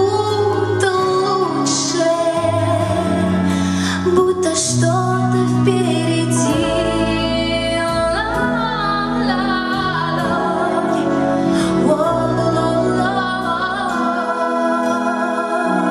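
A woman singing a slow pop song over instrumental accompaniment with held bass notes.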